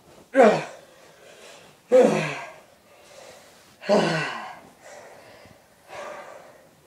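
A person's wordless vocal exclamations: three loud calls about two seconds apart, each dropping in pitch, then a fainter one near the end, with breathing between.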